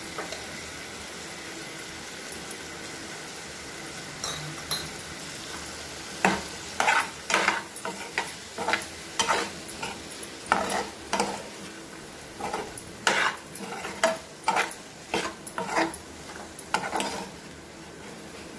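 Diced potatoes frying in oil in a pan, a steady sizzle. From about six seconds in, a steel spoon stirs the spices through them, scraping and knocking against the pan about twice a second.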